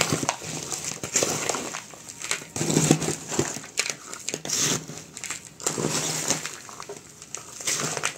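Plastic scoop stirring and turning gritty potting mix in a plastic basin: scraping, crunching rustles in irregular strokes, roughly one a second.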